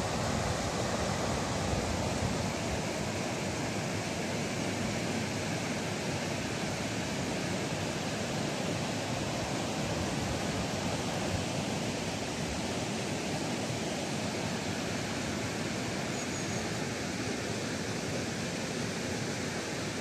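Small river waterfall, water rushing steadily over the drop in an even, unbroken noise.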